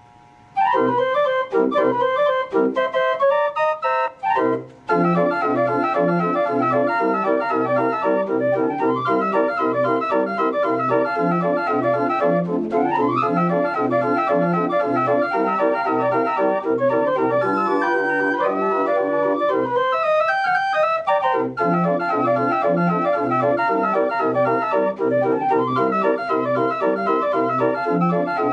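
Instrumental organ music: a melody over chords and a steady repeating bass line. It starts about half a second in with a short broken phrase, then runs on evenly.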